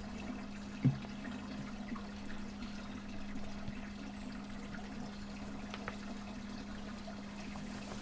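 Water trickling and splashing over a steady low hum, with a faint knock about a second in.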